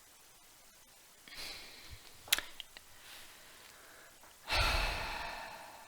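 A person breathing close to the microphone: a breath in, a few small clicks, then a long sigh-like exhale that fades out over about a second.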